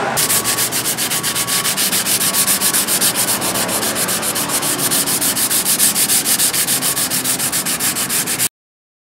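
Hand sharpening of a forged steel billhook: a white abrasive block rubbed rapidly back and forth along the blade's edge, a rasping scrape about six strokes a second. It cuts off suddenly near the end.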